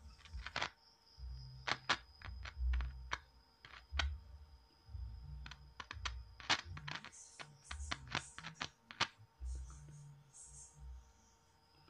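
Irregular sharp clicks and pops from a woofer as its wire ends are tapped against the terminals of an AA battery in a polarity test. Dull low thuds come between the clicks.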